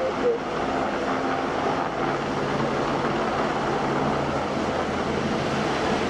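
Steady machinery noise: an even rush with a low hum underneath that settles in about two seconds in.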